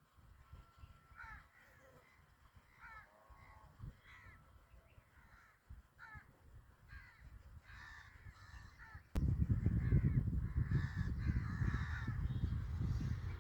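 Crows cawing repeatedly. About nine seconds in, a sharp click is followed by a loud low rumble that continues under the calls.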